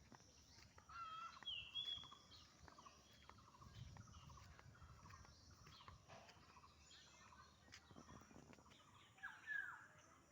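Faint bird calls, with two louder calls, one about a second and a half in and one near the end.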